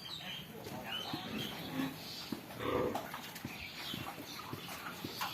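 Pigs squealing and grunting: many short high squeals that bend in pitch, with a louder, lower call near the middle and scattered clicks and knocks.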